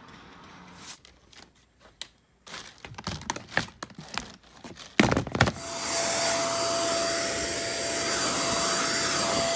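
A run of light clicks and knocks as a clear plastic storage box is handled, then a loud thump about five seconds in. After it a handheld vacuum cleaner runs steadily and loudly with a steady whine.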